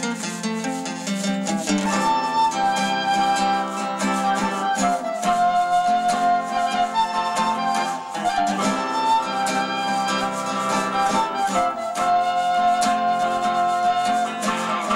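Live instrumental music: a flute plays a held melody over plucked guitar, with maracas shaking; the flute melody comes in about two seconds in.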